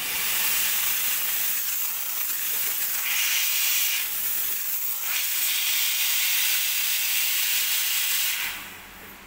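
Steam wand of a two-group commercial espresso machine opened with no jug under it, blowing a steady, loud hiss of steam, then shut off about eight and a half seconds in.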